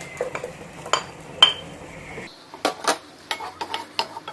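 A metal utensil clinking and knocking against a cooking pot while stirring onions in melted butter: two separate knocks, then a quicker run of clinks in the second half.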